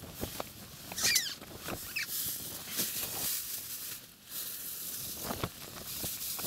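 Rustling of clothing and small clicks of hands handling an ice-fishing rod and its line. Brief high squeaks come about one and two seconds in.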